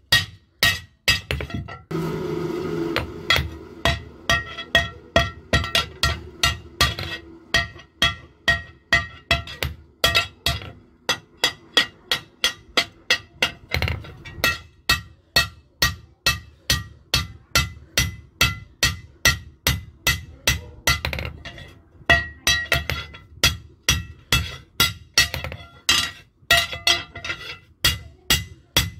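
Hammer blows on a new steel hoe blade held on an anvil, setting the blade's bend: a steady run of strikes, about two a second, each with a metallic ring.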